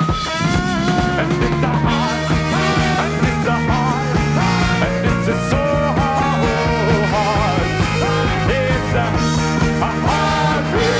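Rock band playing live: drum kit, electric guitars and bass under a wavering lead line, with the lead singer's voice over it.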